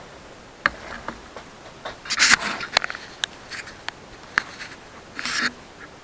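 Clicks, knocks and a couple of short scrapes from parts being handled and set down on a workbench.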